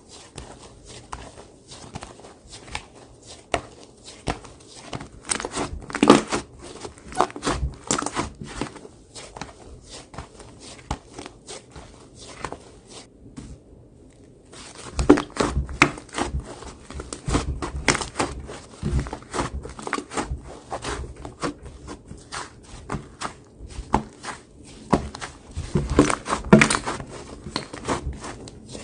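Slime being squeezed and worked by hand, making dense, irregular crackling and popping clicks, with a short pause about halfway through.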